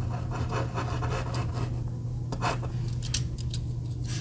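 Erasable FriXion gel pen writing on a small paper sticky note: short scratchy pen strokes every half second to a second, over a steady low hum.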